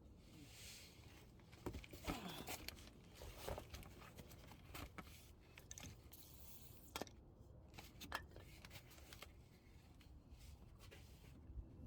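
Faint scattered clicks, knocks and scrapes of objects being handled, with no steady machine sound.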